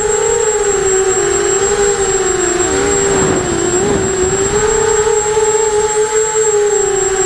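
Brushless motors and propellers of an Eachine Racer 250 FPV quadcopter humming steadily, the pitch wavering up and down with the throttle. About three seconds in the pitch dips briefly, with a short rush of wider noise.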